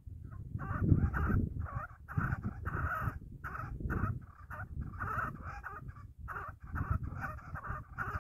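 Partridge calling: a long run of short, rapid notes, repeated over and over, with a low rumble underneath.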